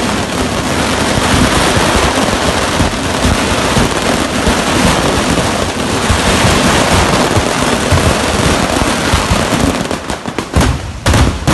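A fireworks barrage: many fireworks going off at once in a dense, continuous crackle. Near the end it breaks up into separate loud bangs.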